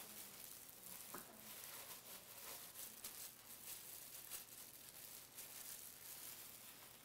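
Near silence: room tone with a faint steady hum, and faint rustles and light taps from hands in plastic gloves scooping dough with a small ice cream scoop onto a metal baking tray.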